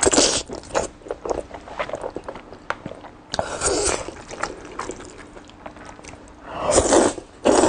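Close-miked eating of black bean sauce noodles: loud slurps near the start, about halfway through and twice near the end, with wet chewing and mouth clicks between them.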